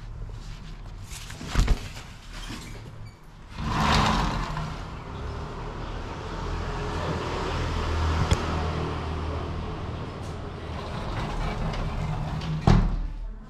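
A sliding glass window knocks, then slides open about four seconds in and lets in outdoor street noise with a low rumble. Near the end it slides shut with a bang that cuts the noise off.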